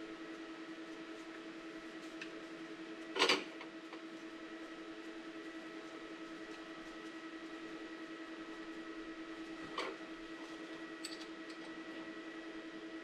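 Steady hum under quiet handling of tools and parts while a gearbox drain plug is refitted, with one short knock about three seconds in and a smaller click near ten seconds.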